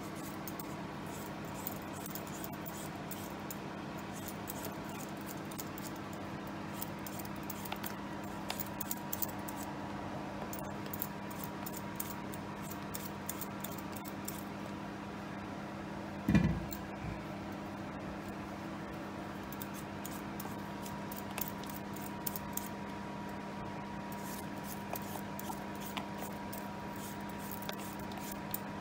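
Metal vegetable peeler scraping the skin off a raw potato in quick repeated strokes, over a steady low hum. One loud thump about halfway through.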